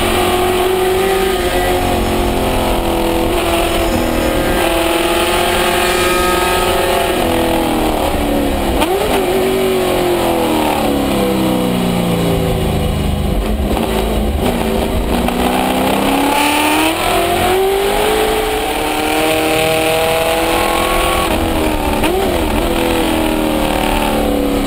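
Improved Production race car's engine heard from inside the cockpit under hard driving on track, its pitch climbing through the gears and falling as the driver lifts and shifts down for corners, with a long drop in revs about nine seconds in before it climbs again.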